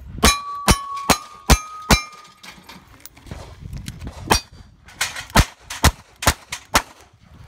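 Revolver fired at steel plate targets: five quick shots about half a second apart, each followed by the ringing clang of a hit plate, then after a pause of about two seconds a second string of about five shots.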